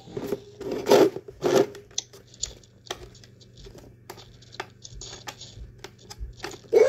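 Handling noise: rustling and scraping with scattered small clicks as things are moved about close to the phone. There are two louder rustles about a second in.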